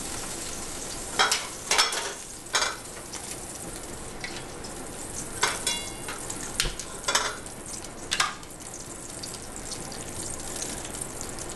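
Chicken breasts sizzling steadily in a hot frying pan, with several sharp knocks and clicks from the cooking utensils and pan as the pieces are lifted out, one of them ringing briefly.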